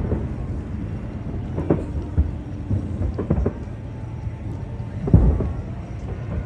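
Aerial fireworks shells bursting: a run of about five deep booms over a continuous low rumble, the loudest boom about five seconds in.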